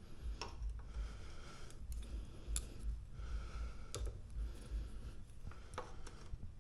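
Hands working on e-bike wiring: a handful of separate sharp clicks, about a second or two apart, over low rumbling handling noise.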